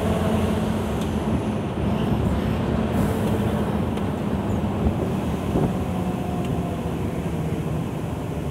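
Scania 164L 580's V8 diesel engine running steadily under way, heard from inside the cab with road noise. The engine note eases slightly lower in the second half.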